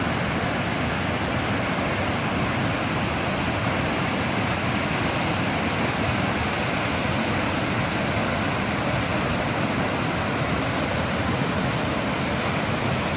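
Steady rushing roar of Cumberland Falls, a large river waterfall, pouring water at an even level throughout.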